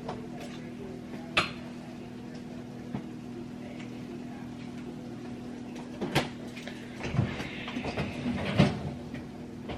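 Kitchen handling sounds: a few separate knocks and clicks, as of dishes, utensils and a cupboard, over a steady low appliance hum, with a brief rustle near the end.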